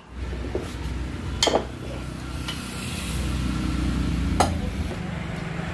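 Sharp metallic clicks and clinks, three of them, the second ringing briefly, as a long breaker bar is worked on the bolts of a stripped-down Tata Ace Mega diesel engine resting on a steel plate. A steady low hum runs underneath.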